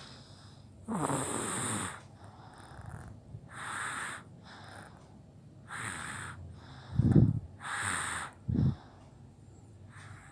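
A baby's congested breathing close up: four noisy, snoring breaths about two seconds apart, with two brief throaty sounds near the end. The baby is ill with a fever, cold and cough.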